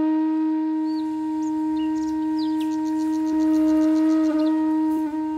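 Background music: a flute-like wind instrument holding one long steady note, with short high chirps and a quick trill over it in the middle.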